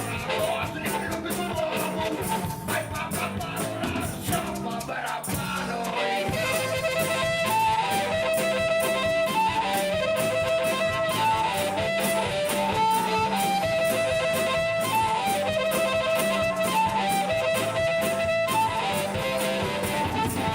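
Live rock band playing guitar and drum kit with a melodic lead line, the drums keeping a steady beat; it fills out about six seconds in.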